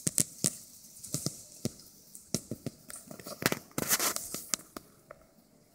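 Dry grass and dirt crackling and rustling under the paws and bodies of puppies scrambling about a mother dog lying on the ground: irregular sharp crackles, busiest about three and a half to four seconds in and thinning out near the end.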